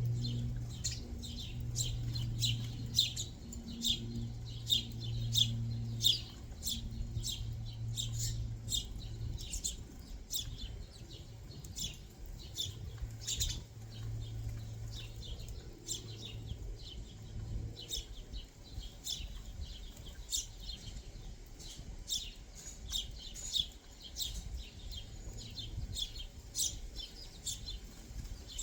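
Small backyard birds chirping: many short, high chirps in quick succession. Under them is a low steady hum, which fades about a third of the way in, returns for a few seconds past the middle, then stops.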